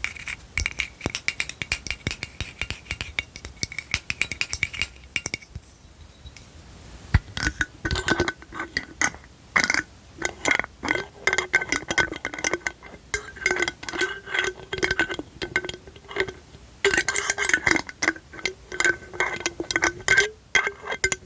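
Fingernails tapping quickly on a glass bottle, each tap ringing with a clear glassy tone. After a short pause about six seconds in, the tapping resumes with a lower ringing pitch.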